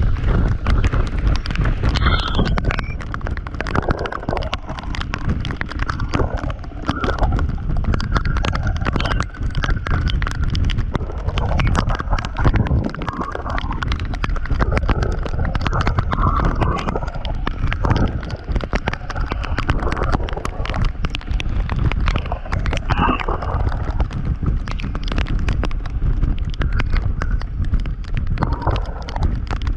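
Wind and road noise on a camera riding a Yamaha XMAX scooter at highway speed: a steady low rumble under dense, irregular crackling buffets.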